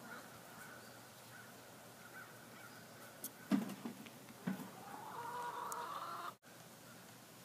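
Two dull knocks, then an animal's drawn-out call of a little over a second, rising slightly in pitch, that cuts off abruptly.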